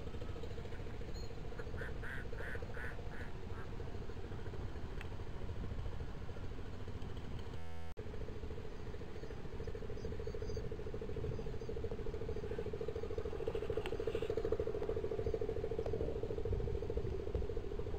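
Steady low drone of a distant small engine, growing louder in the second half. About two seconds in, a quick run of about six short, high calls sounds over it.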